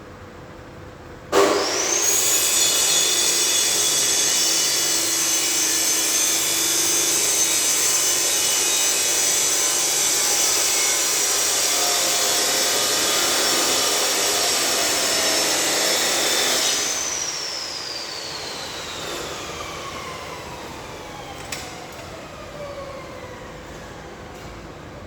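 Angle grinder spinning up about a second in and running loudly for around fifteen seconds, its high whine held steady under heavy noise. It is then switched off, and the whine falls steadily as the disc coasts down over several seconds.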